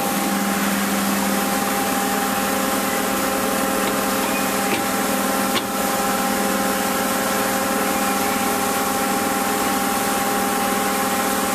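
Powered-up CNC lathe running idle: a steady machine hum with a few fixed tones over an even hiss, and one faint click about five and a half seconds in.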